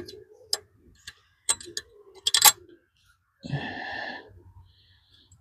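Light clicks and taps from hands handling small parts and wiring on a mini bike, several in the first couple of seconds, then a short rasp about three and a half seconds in.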